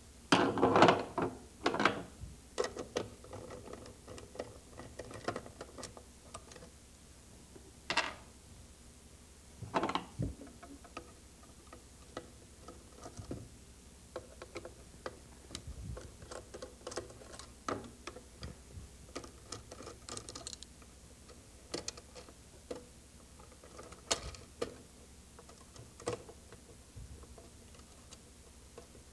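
Scattered clicks and knocks of an unplugged mechanical time-clock timer mechanism being handled and slid out of its metal box. Busiest in the first couple of seconds, with louder knocks about 8 and 10 seconds in.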